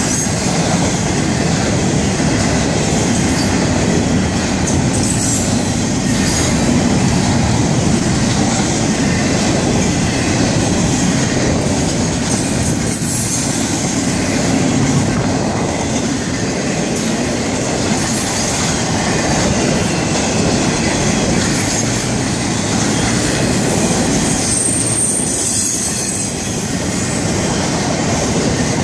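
Double-stack intermodal freight cars rolling past at close range: steady, loud noise of steel wheels on the rails, with a brief high wheel squeal near the end.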